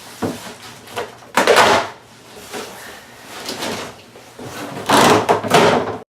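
Cardboard shipping box being ripped open by hand, with two long loud tears, the first about a second and a half in and the second near the end, and smaller scraping rustles between them.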